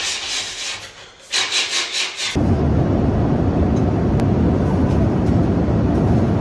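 Steady low rumble of airliner cabin noise, cutting in suddenly about two seconds in after a short stretch of rhythmic hissing.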